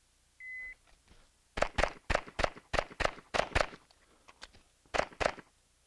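An electronic shot timer beeps once, and about a second later a Springfield Armory XDM 5.25 9mm pistol fires a fast string of about eight shots. After a reload of about a second and a half, with a few small clicks, it fires two more quick shots.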